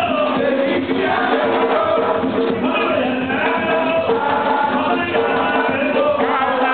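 Live gwoka music: male voices sing together over ka hand drums. The recording is dull, with the top end cut off.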